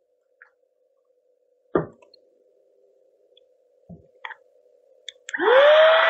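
A few faint clicks and plastic-bag rustles as the bag is handled. Then, near the end, the small battery-powered handheld vacuum switches on: its motor whine rises quickly to a steady pitch over a rush of air as it starts sucking the air out of a sealed zip-top bag.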